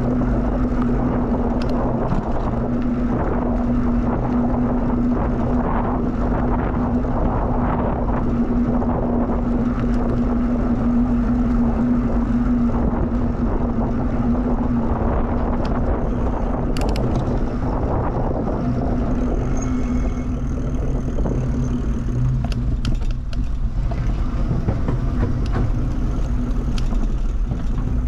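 Steady riding noise from a bicycle on a paved trail: wind rushing over the microphone and tyre rumble, with a constant low hum underneath.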